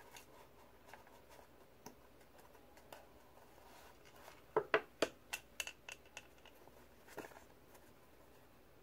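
Handling noise from a small cardboard jewelry box and its card insert being worked loose: scattered light clicks and scrapes, with a quick run of louder taps and scrapes about halfway through and one more near the end.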